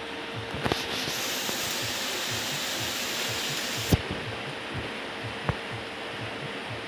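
A hiss of rushing air or spray lasting about three seconds, starting with a couple of light clicks and cutting off suddenly with a sharp click, over a steady machine hum. Another light click follows a second and a half later.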